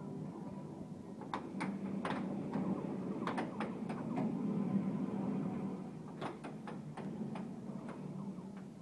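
Air hockey puck and mallets clacking: a series of sharp knocks as the puck is struck and hits the table rails, bunched between about one and four seconds in and again after six seconds, over a steady low hum.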